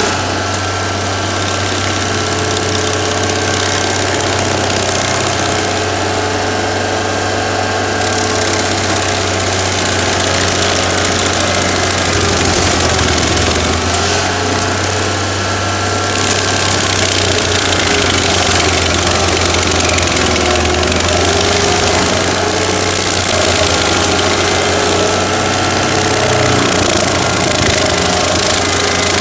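Stump grinder's engine running steadily while its toothed cutter wheel grinds into an oak stump, spraying wood chips. The hissing, chewing noise of the cut swells and eases every few seconds as the wheel is swept back and forth across the stump.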